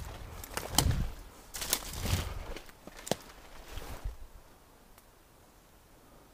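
Footsteps thudding and crunching through forest brush and fallen branches, with a sharp crack about three seconds in. The steps stop about four seconds in, leaving a faint steady woodland background.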